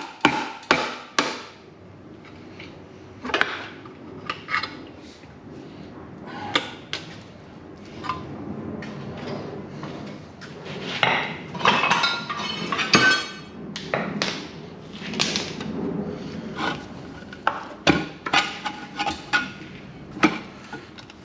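Metal knocks and clanks from hand tools working at a stuck intake manifold on a small-block Chevy 350: a quick run of sharp strikes at the start, then scattered knocks and clatter.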